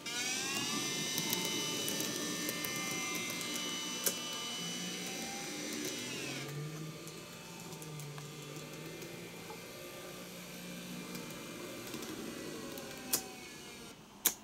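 DCC-controlled model trains running on track. The motors whine, rising in pitch as a train speeds up in the first second, then holding steady, then dropping away as it slows at about six seconds. Under this a lower running hum and wheel rattle carry on, with a few sharp clicks, the loudest near the end.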